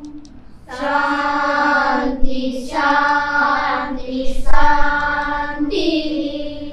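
A group of children chanting in unison on long held notes: four drawn-out phrases, each opening with a hissing consonant.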